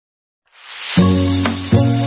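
Intro music. A rising whoosh swells in from silence about half a second in, then a deep sustained note lands at about one second. A sharp click follows, and a second note starts just before the end.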